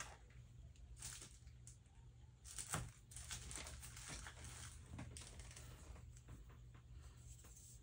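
Faint rustling and crinkling of craft supplies being handled, with a light tap a little under three seconds in, over a low steady hum.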